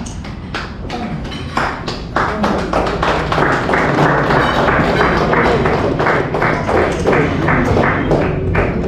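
A group of people clapping, the applause swelling about a second and a half in and then holding steady as a dense patter of hand claps.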